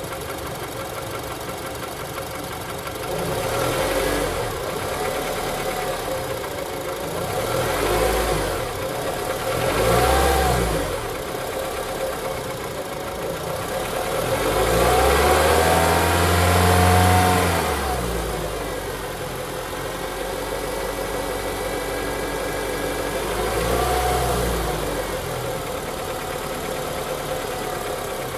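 Honda K24 2.4-litre inline-four idling and revved up five times, the longest rev about halfway through, with a knocking noise from the engine.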